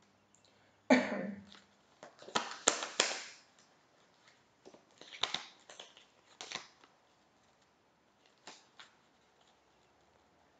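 A deck of tarot cards being shuffled and handled by hand: clusters of sharp snaps and flicks, the loudest about a second in and again between two and three seconds, with smaller ones later and quiet gaps between.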